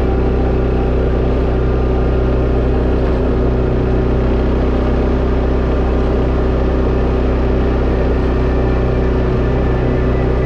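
Tracker Off Road 700 ATV engine running at a steady speed on a dirt trail, its drone holding an even pitch.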